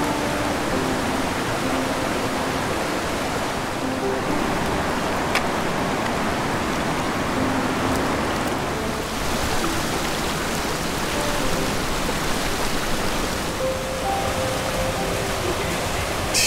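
Steady rush of creek water, with faint short notes of background music over it.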